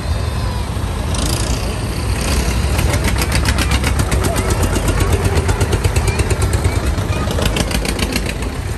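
Diesel engines of vintage tractors running at low revs as they drive slowly past close by. From a few seconds in, one engine adds a rapid, even ticking beat that grows louder as it passes and fades near the end.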